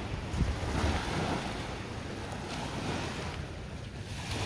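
Sea waves washing on the shore, with wind buffeting the microphone in low rumbling gusts.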